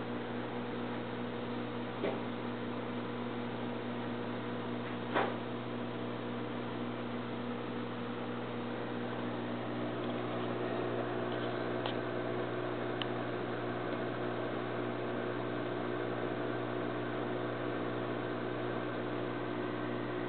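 Aquarium filter pump running with a steady hum and hiss. Two short sharp clicks come about two and five seconds in.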